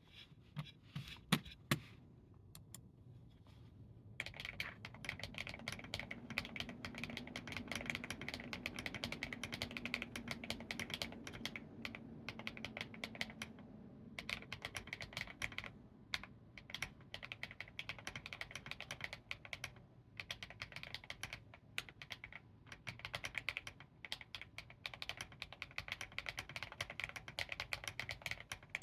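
Typing on a Keychron V5 Max mechanical keyboard with lubed HMX Swift switches and tall doubleshot PBT KAT keycaps, in a plastic case filled with foam and PET and IXPE sheets, giving a deep, poppy sound. A few single keystrokes come first, then from about four seconds in there is fast continuous typing broken by short pauses.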